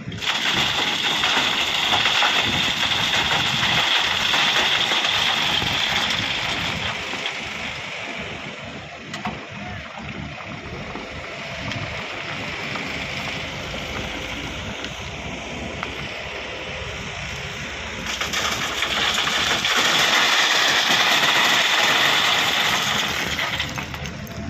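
Doosan DX140W wheeled excavator working, its diesel engine and hydraulics running under load as it digs and sorts crushed stone. The sound is loud and steady, swelling for the first several seconds and again near the end.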